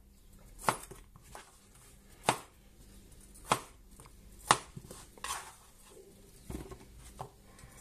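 Kitchen knife chopping a peeled potato into cubes on a plastic cutting board: separate sharp knocks of the blade hitting the board, about one a second, with a few fainter cuts between them.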